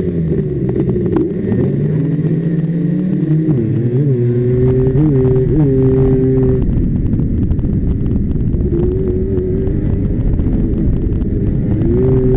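A 250 cc racing quad's engine heard from the rider's helmet, throttled off and on around the track: its pitch drops, climbs, and holds with quick blips of the throttle. For a stretch in the middle a rushing noise covers it, and the engine note returns near the end.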